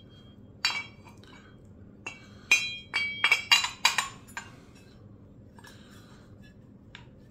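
CNC-machined aluminium Minarelli engine case halves clinking and knocking against each other as they are handled and fitted together by hand: a couple of sharp metallic clinks with a short ring about a second in, then a quick cluster of them in the middle.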